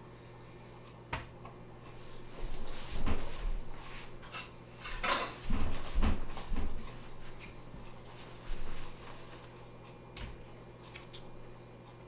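Irregular knocks and clatter of kitchen handling on a plastic cutting board as raw fish fillets are laid down one at a time, busiest in the middle, with one more knock near the end. A low steady hum runs underneath.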